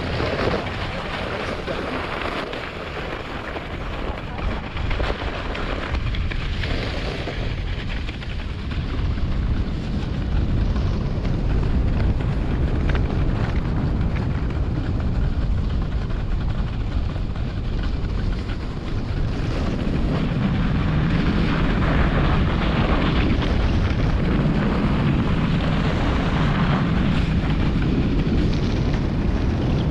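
Sled runners scraping and rumbling over a packed-snow toboggan run at speed, with wind on the helmet or sled camera's microphone; a steady noisy rush with a heavy low rumble that grows louder about ten seconds in.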